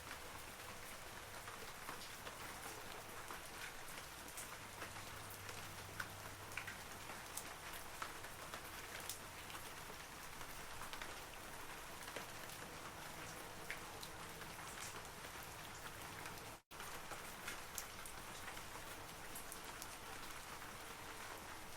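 Steady rain falling on forest trees: an even hiss of rainfall dotted with many distinct single drop ticks. The sound cuts out for an instant about three quarters of the way through.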